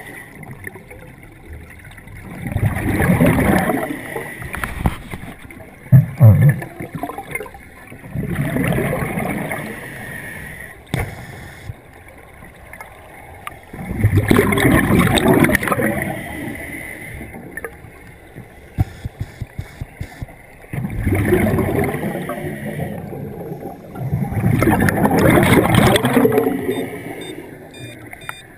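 Scuba regulator breathing underwater: exhaled air bubbling out in loud gurgling bursts about every five to six seconds, with quieter stretches between. A short run of quick clicks comes about two-thirds of the way through.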